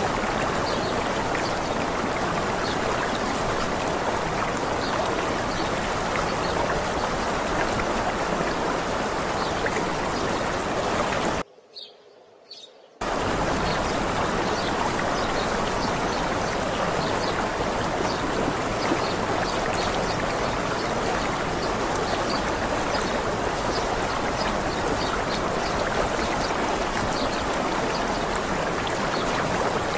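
Steady rush of a waterfall or stream, with small birds chirping faintly over it. The sound drops out for about a second and a half near the middle, then resumes.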